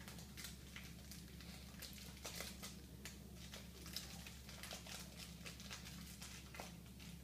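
Faint, irregular rustling and light clicks from an Italian Greyhound rummaging in a kitchen trash cabinet, over a steady low hum.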